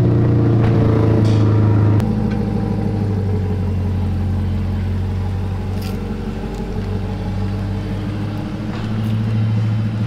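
2021 C8 Corvette Stingray's 6.2 L LT2 V8 idling through a stainless steel cat-back exhaust with an X-pipe, a steady deep exhaust note. About two seconds in, the note drops a little lower and stays even.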